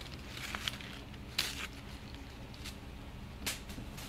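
A cat moving and brushing against the microphone: a few soft rustles and light taps, about four spread through, over a low steady hum.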